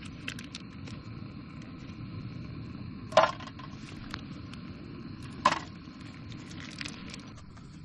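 Steady hiss of a portable camp stove burner while mochi grills over it. Two sharp clicks come about two seconds apart, near the middle.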